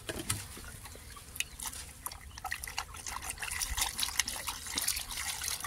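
Water splashing and dripping as a gutted catfish is rinsed over a basin of water, with water poured over it from a jug and running back into the basin in irregular splashes.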